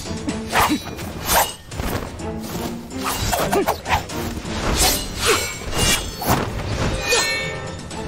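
Sword swishes and robe whooshes from a sword-form routine, about one or two a second with some sharp whacks, over background music.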